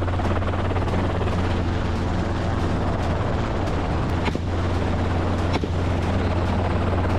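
Helicopter running steadily, a constant low hum of engine and rotor, with two brief sharp clicks in the middle.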